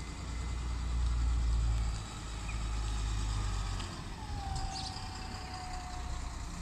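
A single-decker bus engine running as the bus drives across the station yard. There is a low rumble, loudest about a second in, then a thin whine that falls slowly in pitch from about four seconds in.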